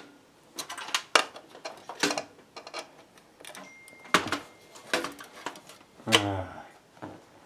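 Irregular clicks and light clatter of hands working on computer parts and a screw inside a PC case.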